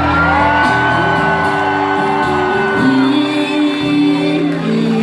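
Live rock band playing, with one long held high note, scooped up at its start, over sustained guitar and bass chords; a new note rises near the end.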